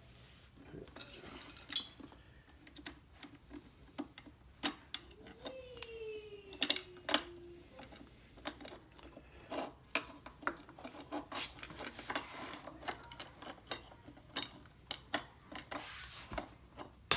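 Irregular sharp metallic clinks and taps of bolts and tools being handled while the front pedal part is bolted onto the go-kart frame.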